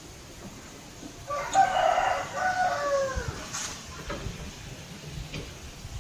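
A rooster crowing once, one long call that drops in pitch at its end, over a low rumble of wind.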